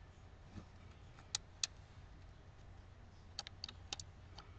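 Faint, sharp small clicks and taps as a microSD card is lined up against its slot on a tablet's circuit board: two about a second in, then a quick cluster of several near the end.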